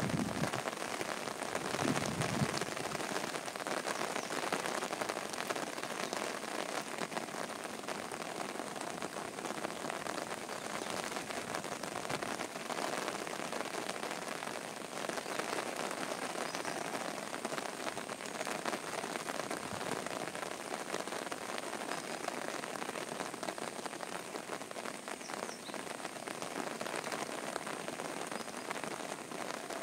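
Heavy rain falling steadily on waterlogged ground, a dense even hiss of countless drops.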